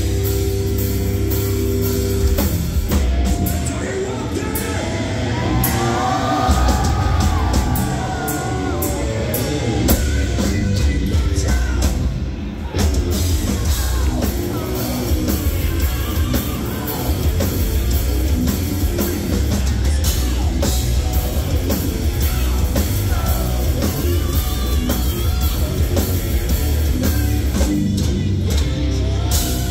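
Heavy metal band playing live: distorted electric guitars and a drum kit under a singer's voice, heard loud from within the audience of a club.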